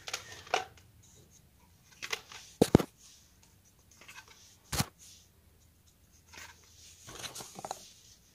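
Hard plastic clicks and clacks from a Nerf Fortnite Hammer Action SR toy blaster being handled, with a loud double clack about two and a half seconds in and a single sharp snap near the five-second mark.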